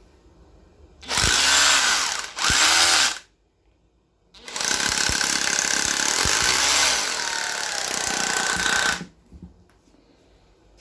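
SeeSii 21V brushless-style cordless angle grinder running under load with its disc working the material. It comes in three goes: two short ones of about a second each, then a longer one of about five seconds.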